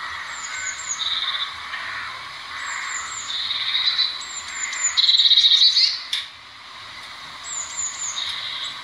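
Eurasian blue tit singing: four repeated phrases, each a few high, thin falling notes followed by a lower, fast trill, the loudest about five seconds in. A sharp click comes about six seconds in.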